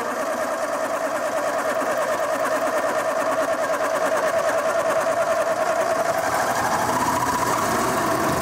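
Four-cylinder petrol engine with glue- and epoxy-patched pistons turning over and running for the first time after the repair, with a steady warbling whine over a rhythmic mechanical clatter.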